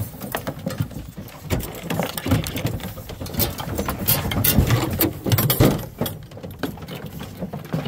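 Metal hound dog box rattling and clanking, its expanded-metal door and latch knocking in quick irregular clicks and thumps.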